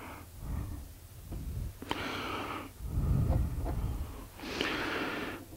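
A man breathing close to a headset microphone: about three audible breaths, with soft breath pops on the mic.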